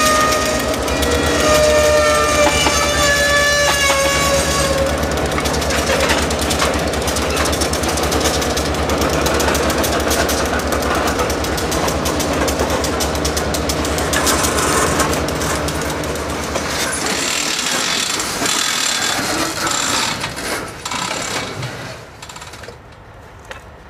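Diesel locomotive engine running as it moves a string of tank cars, with a high tone sliding down in pitch over the first few seconds. The engine sound drops away about two-thirds of the way through, leaving quieter metallic clanks as a hand-thrown track switch is worked.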